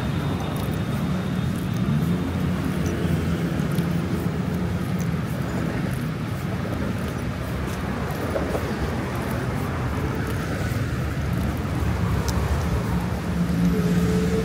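Steady city road traffic: vehicle engines running and tyres on the road, with a low engine hum that gets louder near the end as a vehicle comes close.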